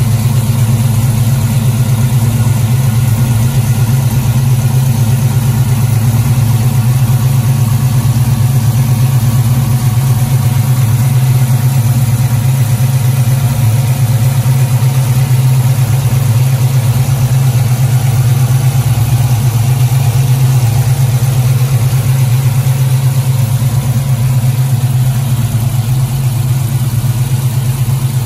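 Ford 7.3 Godzilla pushrod V8, with freshly fitted Johnson limited-travel lifters, running at a steady idle.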